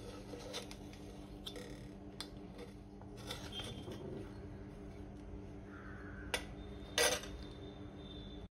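Metal spoon scraping and tapping on an aluminium idli plate as steamed ragi idlis are loosened from their moulds, faint light clicks throughout, with two sharper metal clinks a little after six and seven seconds in.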